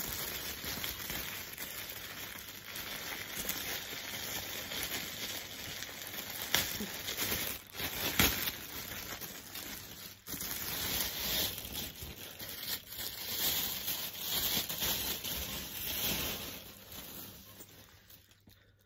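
Clear plastic bag crinkling and rustling as a bag is worked out of it, with a few sharper crackles, dying down near the end.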